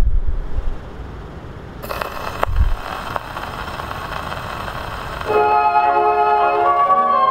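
HMV 102 wind-up gramophone: the soundbox needle is set down on a spinning 78 rpm record with a thump, then the record's surface hiss and crackle run for about three seconds before the recorded music starts, several instruments holding sustained notes, heard through the gramophone's own horn.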